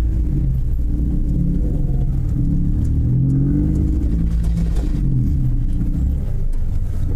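Car engine heard from inside the cabin, revving up and dropping back about three times at low speed.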